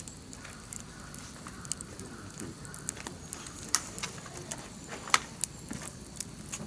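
Wood campfire crackling, with irregular sharp pops and snaps, the loudest about four and five seconds in.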